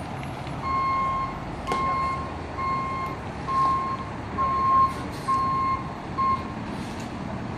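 Backup alarm of a flatbed tow truck beeping as it reverses: seven evenly spaced beeps on one steady tone, about one a second, the last cut short.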